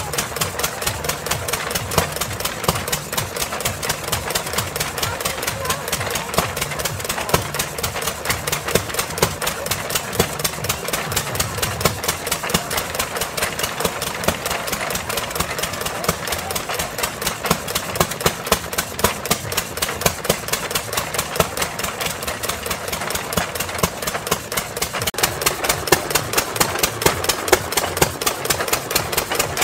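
Small vintage stationary engines running, each driving a reciprocating drag saw back and forth through a large log, making a rapid, even clatter.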